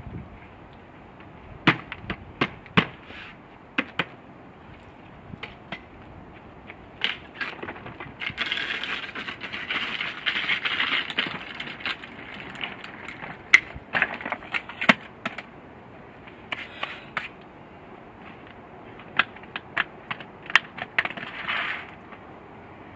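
Things being handled close by: scattered sharp clicks and knocks, with stretches of rustling, the longest about eight seconds in and shorter ones later.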